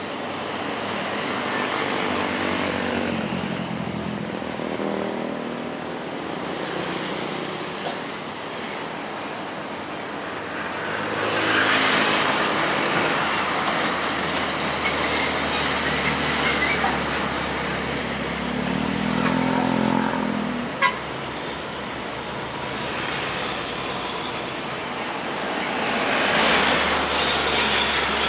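Heavy diesel trucks and motorcycles passing on a busy road, the traffic swelling as vehicles go by, with a horn sounding briefly and a single sharp click.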